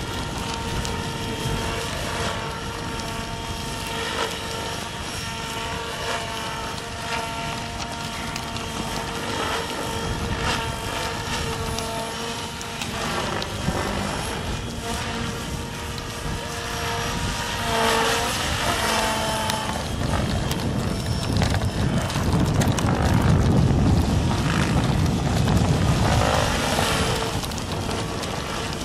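HD-750 electric model helicopter flying aerobatics: its motor and rotor blades give a steady whine of several pitches, which bends up and down a few times in the middle as it manoeuvres. In the last third a louder low rumble joins in.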